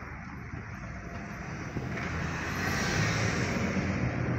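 A car running along a wet road, heard from inside the cabin: a low engine hum under a steady rushing road noise that grows louder about two seconds in.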